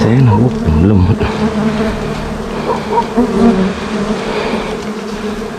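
A swarm of bees buzzing close to the microphone around a disturbed nest, their hum wavering up and down in pitch as they fly past.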